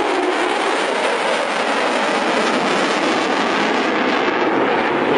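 An F-22A Raptor's twin Pratt & Whitney F119 turbofan jet engines give a loud, steady roar as the fighter flies away.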